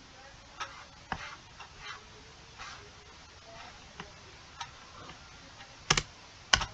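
Scattered, irregular clicks of a computer keyboard and mouse during code editing, with two sharper, louder keystrokes near the end.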